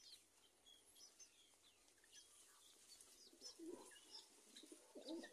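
Faint pigeon cooing, a few low coos in the second half, with scattered short high chirps from small birds.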